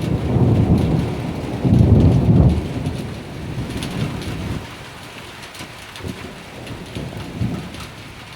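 Thunder rumbling, loudest about two seconds in and dying away by about five seconds, over steady rain with scattered drips.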